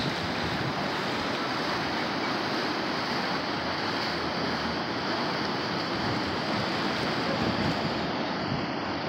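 Ocean surf: a steady rush of waves breaking and washing toward the beach, with some wind on the microphone.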